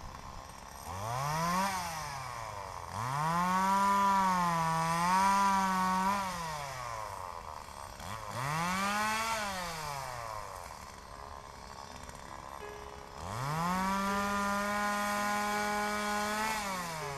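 Two-stroke chainsaw revved up and down in four bursts, the second and last held at high revs for a few seconds, as in cutting brush.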